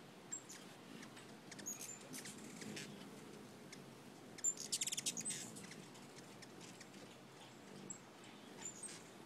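Hummingbird giving short, very high chip notes every second or so, with a rapid chattering run about halfway through that is the loudest part.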